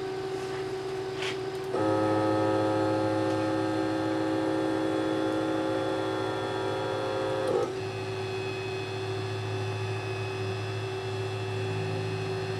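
The axis motors of a homemade X2 CNC machine whine with steady tones as the machine homes. One axis whines from about two seconds in and cuts off suddenly near the middle, then another axis takes over with a higher-pitched whine, all over a steady electrical hum.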